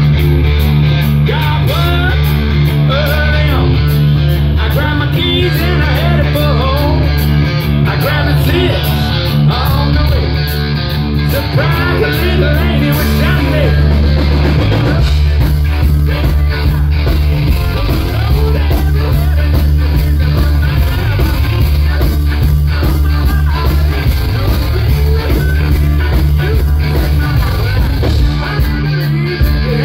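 Rock band playing live at full volume: electric guitars, bass and drums with a singer's vocals over them.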